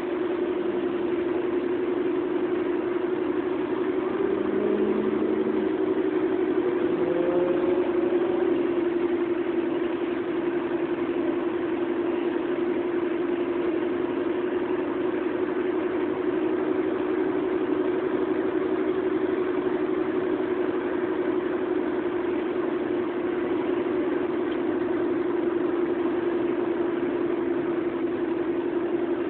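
Steady engine and tyre noise inside a moving car's cabin, with a constant low drone.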